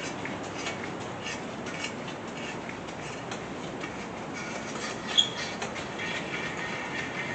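Thread chaser being turned by hand through the head-bolt holes of a Chevy small-block 350 engine block, cleaning the threads: small irregular metal clicks and squeaky scraping, with one sharp metallic clink about five seconds in.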